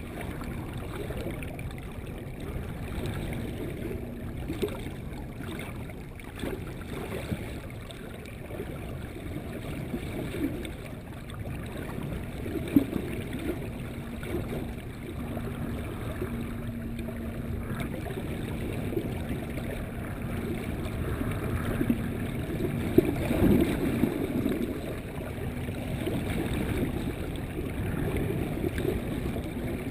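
Muffled underwater rush and gurgle of water streaming past a camera held beneath a moving sailboat's hull, mostly low-pitched, with a faint steady hum through the middle and a couple of brief knocks.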